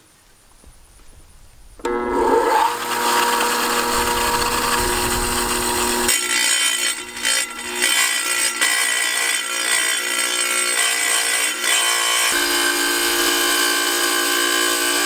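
Tile saw starting about two seconds in and cutting through a tile, its motor and blade running loud and steady, the tone shifting a couple of times as the cut goes on.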